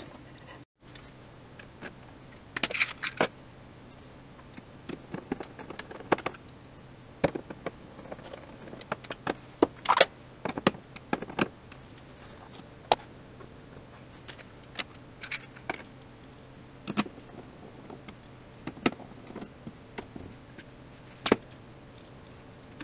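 Handling noise from reworking wires and tape on a TV's sheet-metal chassis: scattered sharp clicks, taps and short rustles at irregular intervals.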